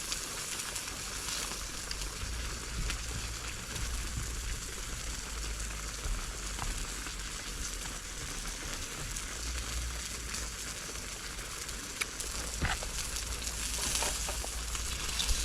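Food sizzling in a pan: a steady hiss with scattered crackles and a few sharper pops.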